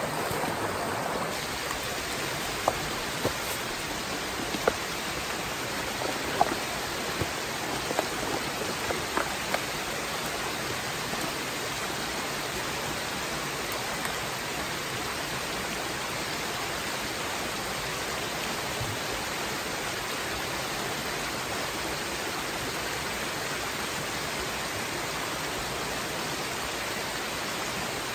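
Steady rushing of a small, rocky mountain brook running high with rain and snowmelt, an even hiss of water over stones. A few faint clicks come through in the first ten seconds.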